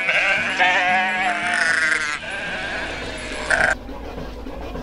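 Sheep and goats bleating, several overlapping quavering calls. About three and a half seconds in they cut off abruptly and a low steady machine rumble takes over.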